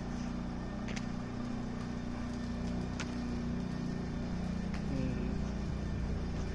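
Steady low hum of a vehicle running, with a brief falling tone about five seconds in, growing a little louder toward the end. Two sharp clicks come about one and three seconds in.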